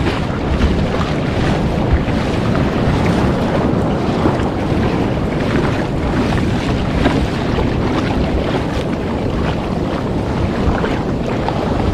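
Breaking surf and rushing whitewater around the kayak, a steady loud wash with small splashes through it, with wind buffeting the microphone.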